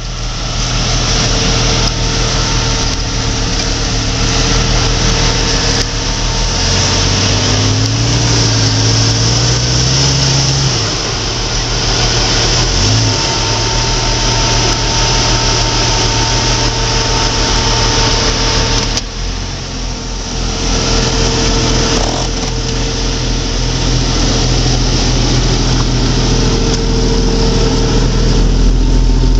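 Jeep Cherokee XJ's 4.0-litre straight-six engine running at low revs while the Jeep climbs a rock, with a steady hiss over it. About seven seconds in the engine speed rises for a few seconds, and there is a short rev a little later.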